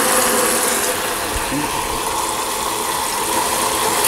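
Water running steadily from a pull-out kitchen faucet's spray head into a plastic pail in the sink, flushing the newly connected supply lines.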